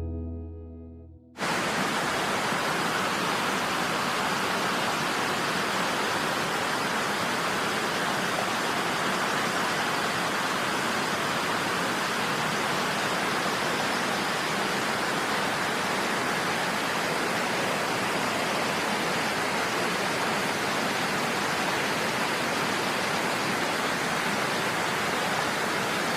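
Waterfall: a steady, even rush of falling water that cuts in abruptly about a second in, as background music fades out.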